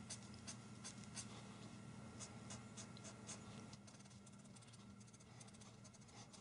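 Faint felt-tip marker strokes on paper, a hand colouring in with short back-and-forth hatching. The strokes come in a spaced run at first, then turn quicker and fainter after about four seconds.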